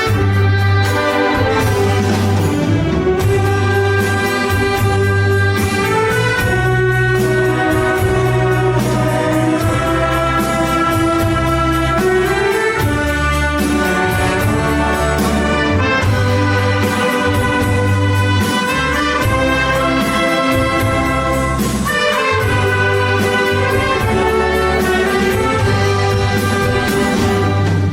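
Wind orchestra playing an arrangement of Korean popular songs, with brass prominent over a steady, rhythmic low bass line.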